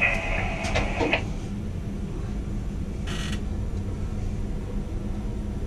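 Steady low mechanical hum of tower crane machinery heard from the operator's position, with a few short clicks and tones in the first second and a brief hiss about three seconds in.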